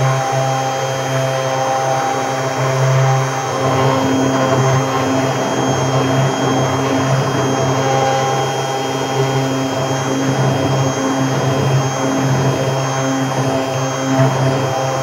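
Electric stick blender running steadily, its motor whining as the blade churns through liquid coffee soap batter in a plastic bowl.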